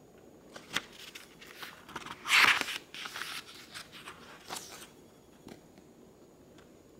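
Pages of a paperback book being flipped through by hand: a run of papery rustles and crinkles with a few light clicks, loudest about two and a half seconds in and dying away by about five seconds.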